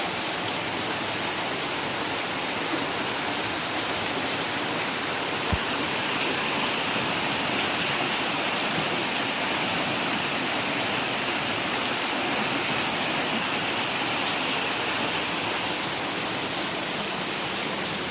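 Steady rushing water during a flood, a dense unbroken hiss with no let-up, and one short low thud about five and a half seconds in.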